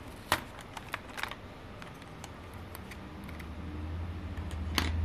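A few sharp plastic clicks and taps from handling small parts and a pry tool inside an opened laptop, the loudest about a third of a second in and another near the end, over a low hum that grows louder in the second half.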